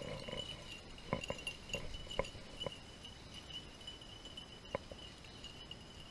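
Beagles barking in the distance: a scattered run of short, sharp barks in the first three seconds and two more a little before the end. The hounds are giving tongue on a rabbit's trail.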